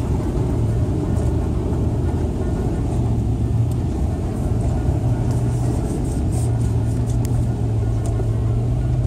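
Car driving through deep floodwater, heard from inside the cabin: a steady low engine and road rumble, with water spraying up from the wheels and a light spattering against the body about halfway through.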